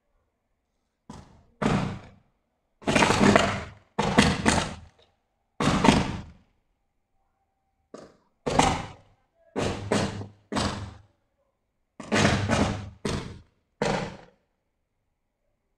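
Pole-mounted electrical transformer arcing after rain: about fourteen sudden, loud bursts of arcing, each under a second, at irregular intervals with silence between. It is a short-circuit fault set off by the rain, throwing showers of sparks.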